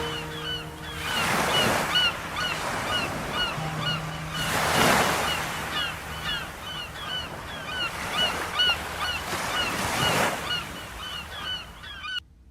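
Ocean-surf sound effect: waves washing in, swelling every few seconds, with gulls crying over them in many short repeated calls. A few faint held notes of the music linger early on, and the whole effect cuts off abruptly near the end.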